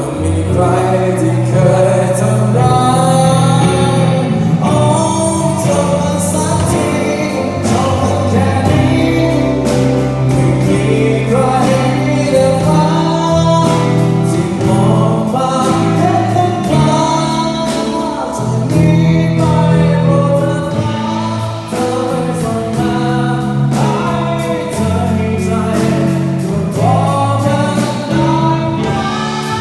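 A live band playing a Thai pop-rock song with singing over a steady beat and sustained bass notes.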